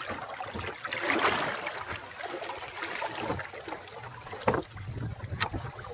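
Water lapping and splashing against the hull of a small sailboat under way, irregular, with a swelling rush about a second in and a couple of sharper splashes near the end.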